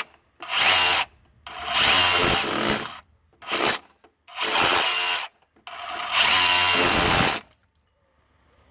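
Ridgid R86712 brushless SDS rotary hammer in chisel mode, chipping mortar around a pipe, run in five short bursts of up to about a second and a half each and stopping about seven and a half seconds in.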